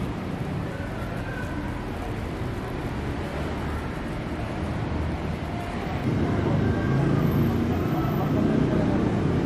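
Steady background hubbub of a busy public place, with faint distant voices, growing louder about six seconds in.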